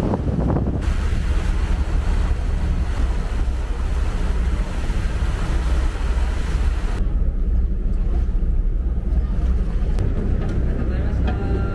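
Ferry engine running with a steady low rumble, with wind on the microphone and water rushing past the hull; the rushing hiss drops away suddenly about seven seconds in while the rumble goes on.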